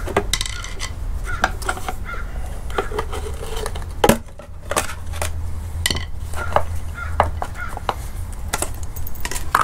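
Flathead screwdriver prying and bending open the aluminum tabs on a VW Mk4 GTI's removed shift box: scattered metal clicks, clinks and scrapes, with one sharp clack about four seconds in.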